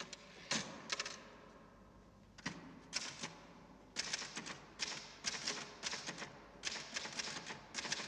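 Typewriter keys clacking in short, irregular runs of quick strikes, with the typing growing denser from about four seconds in.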